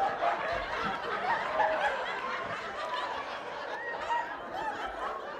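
Audience laughing, many voices overlapping, slowly dying down.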